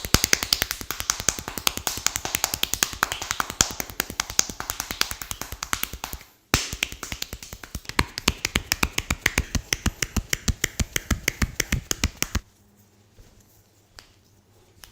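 Rapid sharp snapping clicks, about eight to ten a second, from a barber's skin-cracking massage. The run breaks off for a moment about six seconds in, starts again, and stops about two and a half seconds before the end.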